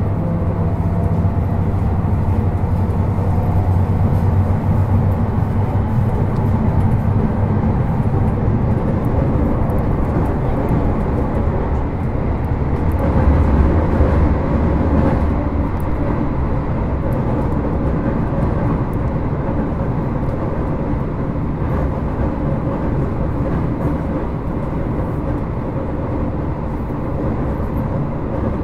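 Running noise heard inside a JR Hokkaido 721 series 4000-subseries electric multiple unit motor car (Toshiba GTO inverter) under way between stations: a steady rumble of wheels on rail and traction motors, a little louder about 13 seconds in.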